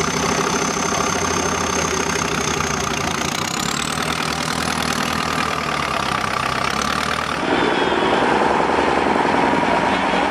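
Off-road trial truck's engine running steadily at low revs as it works through a trench, with a thin high whistle that rises about halfway through. About seven seconds in, it switches abruptly to another truck's engine running louder.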